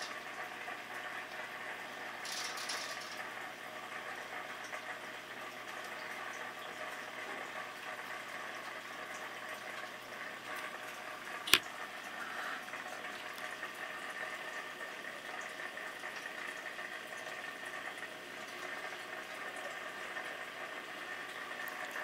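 Steady bubbling and trickling of a reef aquarium's circulating water, with one sharp click about halfway through.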